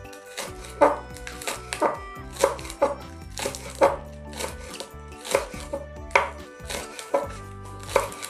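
Chef's knife chopping spring onions on a wooden cutting board: sharp knocks of the blade striking the board, about two a second in an uneven rhythm.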